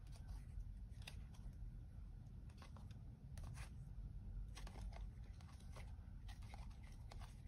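Tarot cards being slid and flicked one at a time from one stack to the other in the hands: faint, irregular soft clicks of card stock, roughly one or two a second, over a low steady hum.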